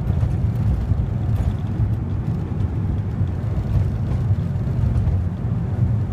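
Steady low rumble of engine and road noise inside a moving passenger van.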